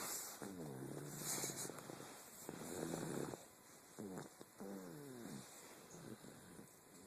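Snoring: a run of four or five drawn-out snoring breaths, each about a second long, with a pitch that drops and then holds steady.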